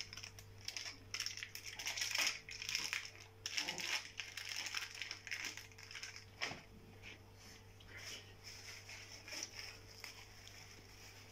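Dry crinkly rustling and scraping from a foil cocoa packet and a spoon being handled over a bowl of fine biscuit crumbs. The rustling is dense for about the first six seconds, then thins to faint scattered scrapes over a low steady hum.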